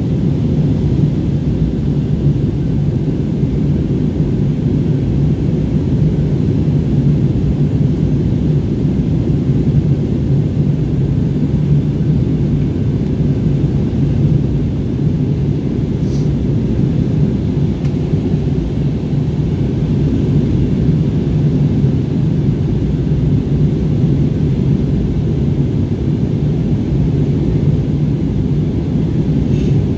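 Jet airliner cabin noise in flight: a steady, loud, low rumble of the engines and the airflow, heard inside the cabin.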